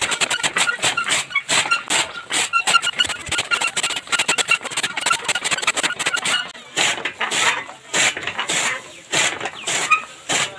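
Hand-turned chaff cutter chopping green fodder: a rapid clatter of blades and gears with squeaks in the first few seconds, then regular chopping strokes about twice a second.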